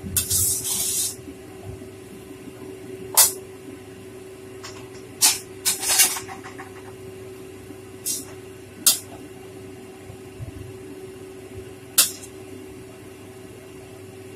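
Metal spatula stir-frying rice vermicelli in a stainless steel wok: a hissing scrape in the first second, then sharp clanks of the spatula against the wok at irregular intervals, over a steady hum.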